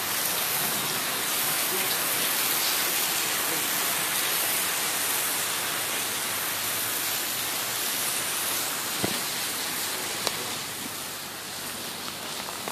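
Heavy tropical rain pouring down as a steady, dense hiss, with two sharp taps about nine and ten seconds in.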